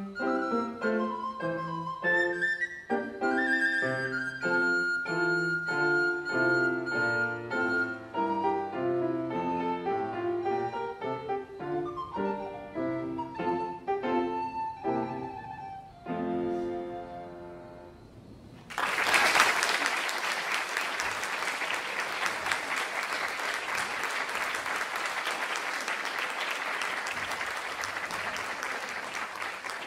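Flute and piano playing a classical piece, which ends about sixteen seconds in on a fading final chord. A couple of seconds later an audience breaks into steady applause.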